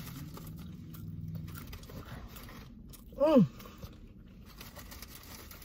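Mouth sounds of eating: chewing and biting on food. About three seconds in comes a short voice sound sliding down in pitch, the loudest thing heard.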